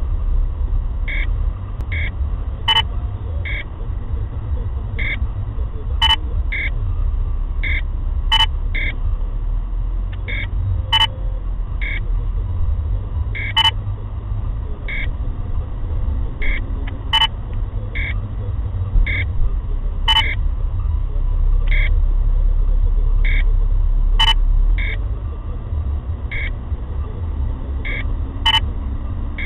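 Radar detector alert beeping in a car's cabin: short two-tone beeps roughly once a second, with a sharper click every few seconds, warning of a Ramer police speed radar. Under it runs the low rumble of the car moving slowly in traffic.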